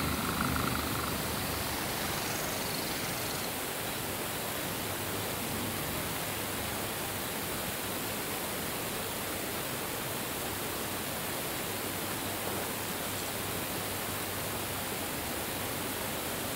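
A steady, even hiss with no distinct events, and a faint brief tone in the first second.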